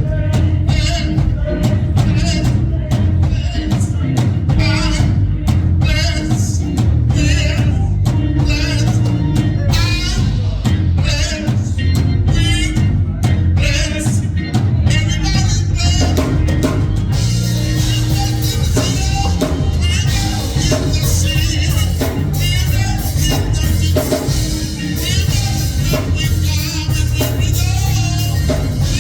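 Church music with a drum kit keeping a steady beat, a strong bass line and singing, growing fuller and brighter with more cymbal about halfway through.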